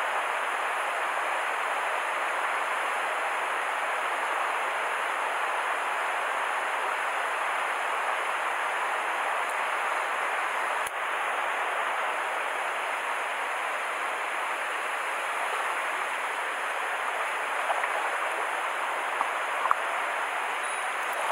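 Mountain stream rushing steadily, with a brief dip about halfway through and a couple of small clicks near the end.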